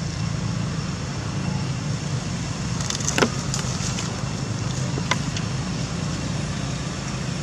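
A running engine, a steady low rumble with a sharp click about three seconds in and a fainter click about two seconds later.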